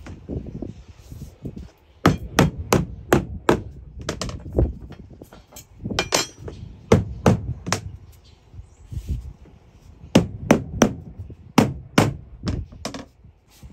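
Mallet tapping vinyl floor planks into place, in quick runs of sharp strikes about three a second with short pauses between the runs.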